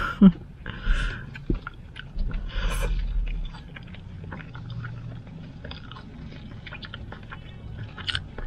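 A person eating animal-style French fries by hand and chewing them close to the microphone, with many small wet mouth clicks and smacks. There are a few louder bursts in the first three seconds.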